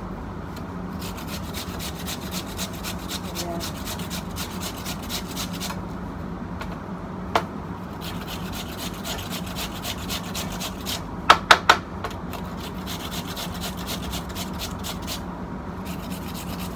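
Raw potato being grated on a handheld metal grater: a long run of quick, repeated rasping strokes with two short pauses. A single sharp click comes about seven seconds in, and a quick run of three or four louder clicks just after eleven seconds.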